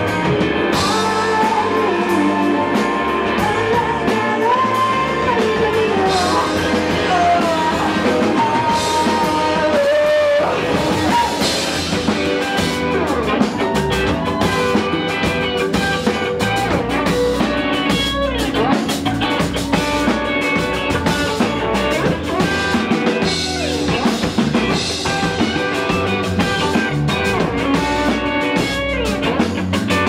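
Live indie rock band playing, recorded from the audience: a Fender electric guitar, bass guitar and drum kit, with congas. A gliding sung or lead melody sits on top over the first ten seconds or so, then the band plays a fuller, busier passage.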